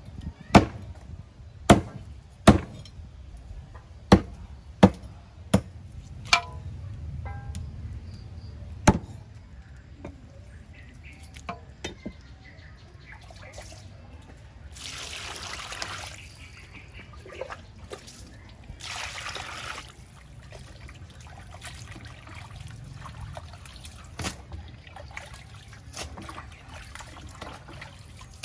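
Cleaver chopping raw chicken on a wooden chopping block: about eight sharp chops, irregularly spaced, over the first nine seconds. Then water splashing and trickling in a metal bowl as the chicken pieces are washed by hand.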